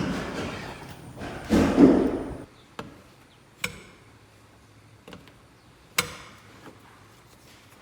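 Handwork on a wooden window sash: a scraping rustle, then four sharp knocks or taps spaced about a second apart.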